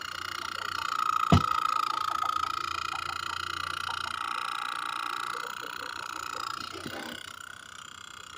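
Small DC motor on a homemade correction-tape toy running with a steady high whine that fades out about seven seconds in. A sharp knock comes about a second in.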